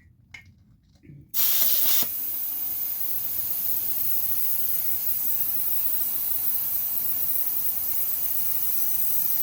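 Pressurized gas hissing out in a steady stream. It starts suddenly about a second in with a louder first half second, then runs steadily until it cuts off near the end. This comes while trying to seat the bead of a tubeless minibike tire.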